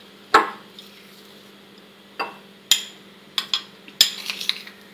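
Metal spoon clinking and scraping against ceramic and glass bowls as mashed boiled potato is scooped from one bowl into the other. A series of sharp clinks, spaced out at first and coming closer together near the end.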